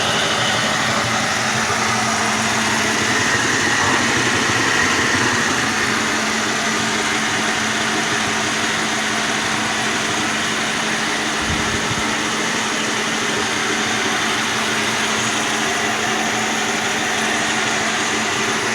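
G scale model locomotive running on DC power: a steady whir from its electric motor and gears, with wheels rolling on the track.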